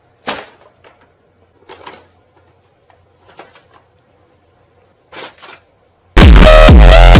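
A few short crinkles and scrapes of a brown paper bag as a cat inside it shuffles across the floor, spaced a second or two apart. About six seconds in, loud electronic dance music starts abruptly and is the loudest sound.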